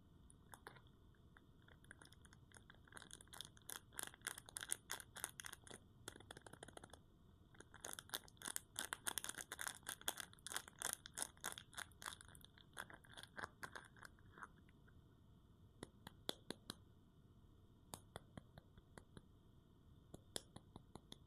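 Crisp crackling and crunching of soap being opened by hand, in two dense runs of several seconds each, then a few scattered clicks.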